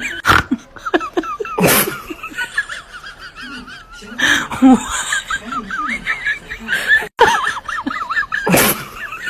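Small birds chirping and warbling in quick, wavy calls, broken by a few short, loud, noisy bursts.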